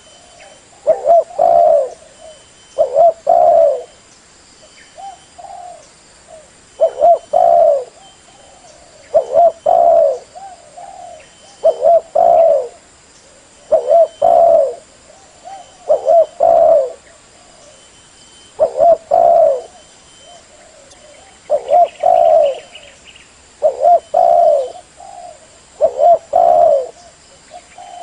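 Spotted dove cooing: short low coo phrases repeated about every two seconds, the call of a decoy bird used to lure wild doves.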